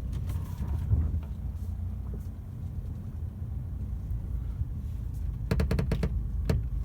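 Rear seat of a 2018 Mercedes-Benz A-Class creaking inside the cabin over the low rumble of the car on the road: a few short clicks in the first second, then a run of rapid creaks about five and a half seconds in. The creaking comes only with the rear seat backs folded up, from the seat rubbing or hitting the car's body as the car goes over bumps.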